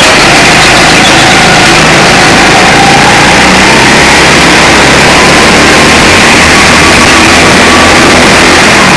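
Go-kart engine running under throttle, heard from a camera mounted on the kart, loud and near clipping, with its pitch gliding slowly up and down as the kart is driven through the corners and onto a straight.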